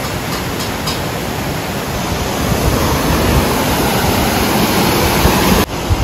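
Steady rush of falling water from Kiwai waterfall, an even hiss with no separate events. It cuts off abruptly near the end.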